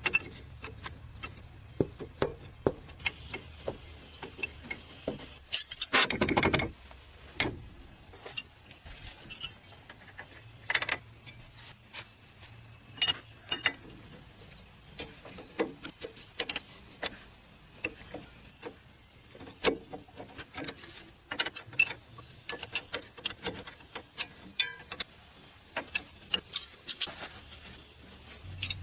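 Metal hand tools clinking, tapping and knocking irregularly on metal machine parts, with one longer, louder noise about six seconds in.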